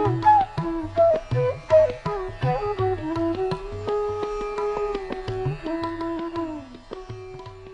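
Background music in Indian classical style: a single melody line that slides and bends between held notes over regular hand-drum strokes, growing quieter toward the end.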